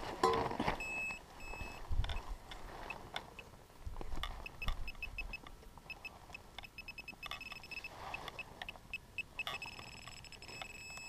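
Handheld metal-detecting pinpointer beeping in short chirps while probing a freshly dug hole. The beeps come quicker in the second half and run into a near-continuous tone near the end as it closes on a shallow buried target. Dull thuds of a hand digger in the soil come in the first half.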